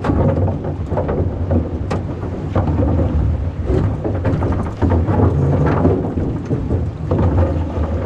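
Wind buffeting the camera microphone in a low, continuous rumble, over the rush of river water around a drifting boat, with a few light knocks.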